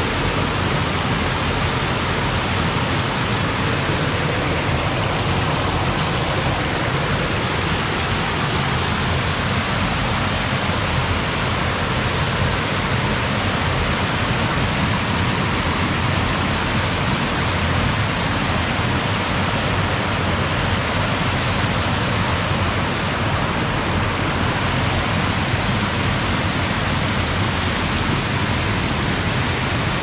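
River water pouring over a low concrete weir and churning down over rocks below: a steady rush with no change in level.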